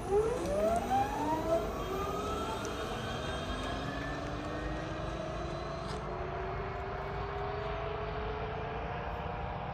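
Electric hub-motor whine from an Ather 450X and an Ola S1 Pro accelerating hard in sport mode. Several tones rise steeply in pitch over the first two seconds, then climb slowly and hold steady as the scooters reach speed, over a low steady rumble.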